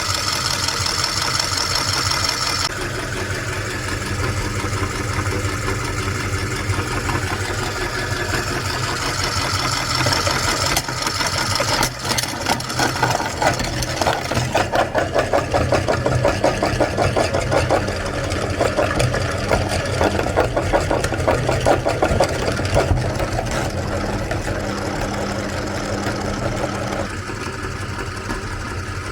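Electric meat grinder motor running steadily under load as colourful soap is fed through it. From about twelve seconds in, a rapid pulsing churn joins the motor noise and eases off near the end.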